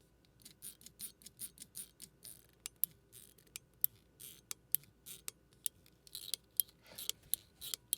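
Cyber EDC Phase mechanical fidget slider, made of PEI plastic, clicking through its detents as the slider is worked along its tracks: a run of sharp, irregular clicks, several a second.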